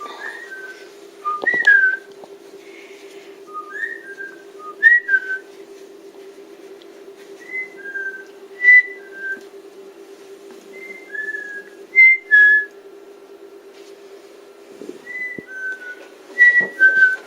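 A parrot whistling: short, falling two-note whistles repeated in little groups every few seconds, over a steady low hum.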